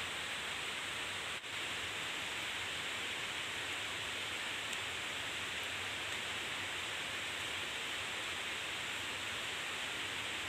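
Steady hissing, rushing noise with no distinct events, briefly dropping out about a second and a half in.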